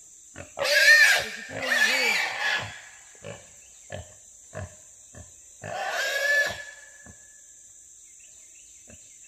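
Trapped wild hog squealing loudly three times as it is wrestled and held down, with a few short thumps of scuffling between the squeals.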